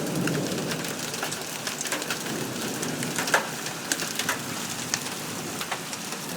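Hailstorm: a steady hiss of rain and hail with scattered sharp cracks of large hailstones striking, the loudest about halfway through.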